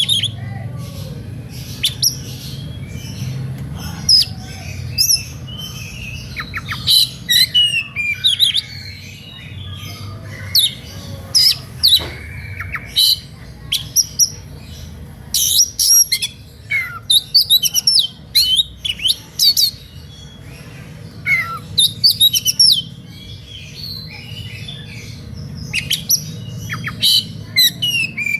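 Oriental magpie-robin (kacer) singing a full, aggressive song: runs of sharp whistles, quick sweeping chirps and harsher notes in irregular bursts, over a steady low hum.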